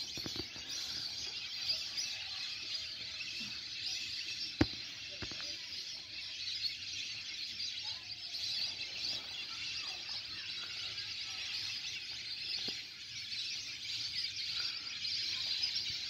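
Steady, high-pitched outdoor chorus of insects and birds calling, dense and continuous, with one brief knock a little under five seconds in.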